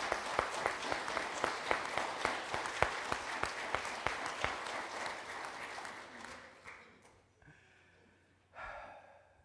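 Congregation applauding: many hands clapping in a dense patter that thins out and dies away about seven seconds in.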